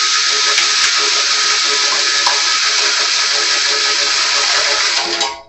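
Power drill running steadily, turning a guitar tuning peg to wind on a string; it stops shortly before the end.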